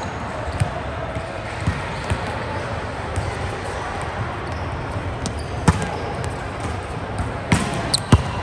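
Volleyball being hit and bouncing on a gym floor: sharp slaps at irregular intervals, the loudest about six seconds in and again near the end, over a steady background of voices.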